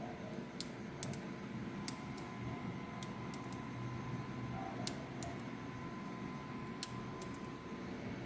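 Click beetle making sharp, irregular clicks, a dozen or so, over a steady faint hum.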